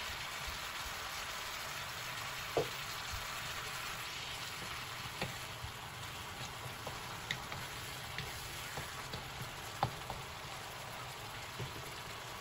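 Butternut squash and bok choy sizzling in a hot wok, a steady hiss, with a few sharp taps and scrapes of a wooden spatula against the pan as the vegetables are stirred; the loudest tap comes about two and a half seconds in.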